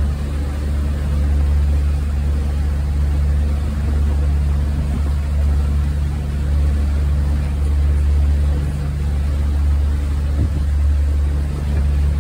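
A motorboat's engine running steadily with a constant low hum.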